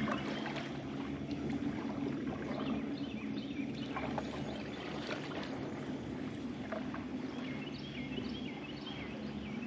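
A small boat motor running steadily with a low, even hum, over faint water noise, with scattered short high bird chirps, more of them near the end.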